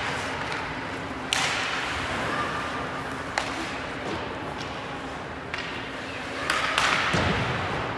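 Ice hockey play in an echoing rink: about five sharp cracks and knocks of puck and sticks against the boards and ice, the first the loudest and two close together near the end, over steady arena noise and a low hum.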